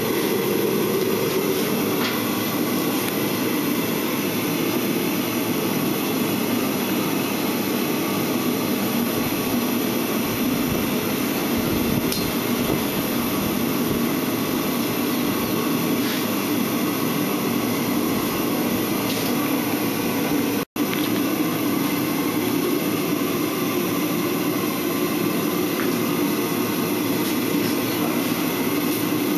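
A forge running with a steady rushing noise, with a few faint ticks. The sound cuts out for an instant about two-thirds of the way through.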